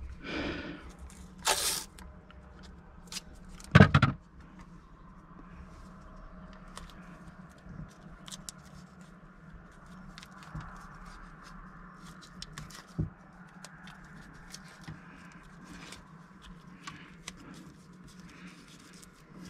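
Handling noise from hands working a cable through a rubber wiring boot: faint scraping, rustling and small clicks throughout. There is a short harsh rasp about a second and a half in, and a louder thump about four seconds in.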